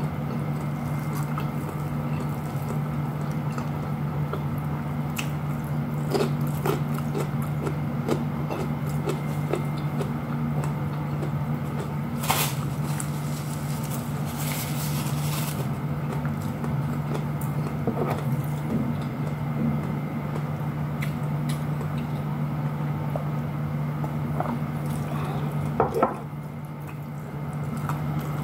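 Eating by hand: soft chewing and mouth sounds with scattered small clicks of fingers and food against a plate, over a steady low hum. A brief paper-tissue rustle near the middle.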